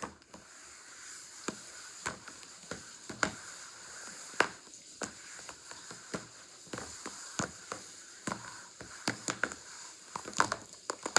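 Plastic slime containers being shuffled around on a table: irregular clicks and knocks.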